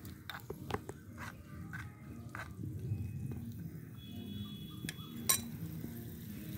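Small metal spoon stirring in a miniature aluminium pan, giving a string of light clinks and scrapes, the sharpest clink about five seconds in.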